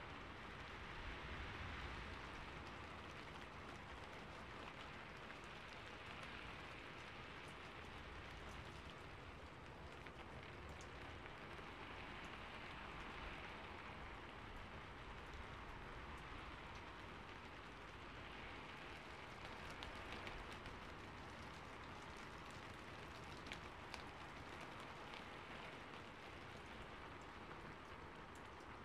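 Faint, steady rain, an even patter that swells softly now and then, with a few light ticks.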